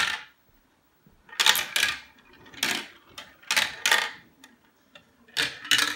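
A glass marble clattering down a plastic marble-run track in about four short rattling runs, with a few light ticks between them.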